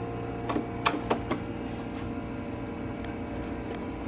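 A few light clicks and taps of plastic and a screwdriver as the air intake duct is worked into place and screwed to the air box. They bunch in the first second and a half, over a steady low hum.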